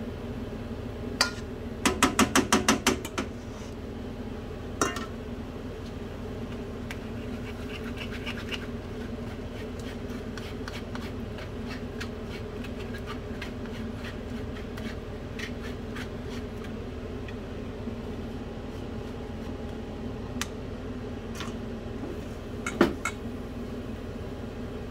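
Cookware clatter at a frying pan: a glass bowl and a mesh strainer knocking on the pan. A few single knocks are heard, plus a quick run of about ten taps a couple of seconds in, over a steady hum.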